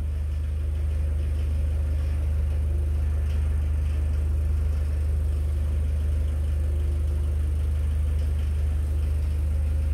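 A steady low mechanical hum that does not change, from a machine running nearby.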